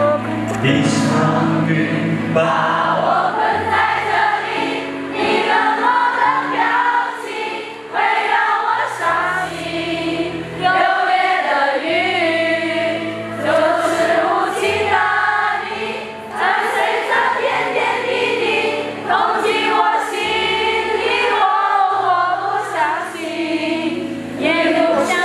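A crowd of fans singing along together over a pop ballad backing track with a steady bass line.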